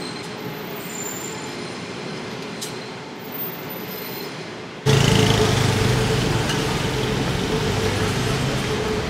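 City street traffic noise. About five seconds in it suddenly gets much louder, with a steady low engine-like hum from a large vehicle or train passing close by.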